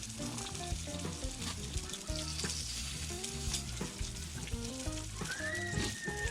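Food sizzling as it fries on a hot pan, a steady crackling hiss, with background music of short stepping notes.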